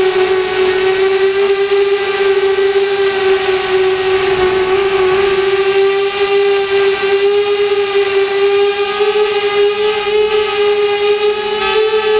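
Mini quadcopter's electric motors and propellers whining steadily, heard up close from the drone's onboard camera. The pitch dips slightly about four seconds in and rises a little near the end.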